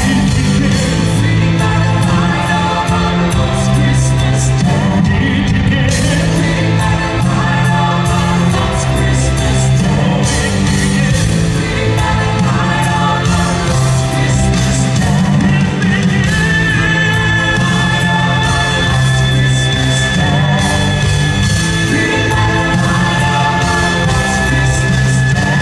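Loud live symphonic rock band with a male lead singer, drums and heavy bass. A long held high note comes in about sixteen seconds in.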